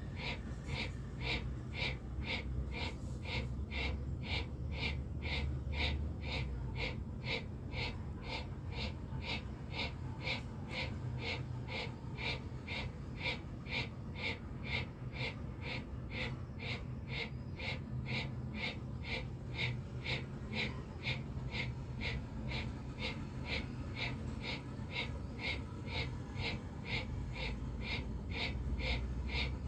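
Bhastrika pranayama (bellows breath) through the nose with the mouth closed: forceful, rhythmic strokes of air in and out, about two a second, steady and even throughout.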